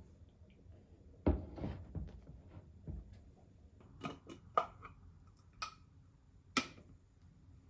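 Household objects being handled: a few soft thumps about a second in, then four light clinks with a short ring, spaced about a second apart.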